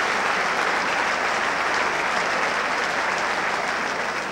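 Football stadium crowd applauding and cheering a point-blank save by the goalkeeper, a steady dense wash of clapping and voices that eases off slightly near the end.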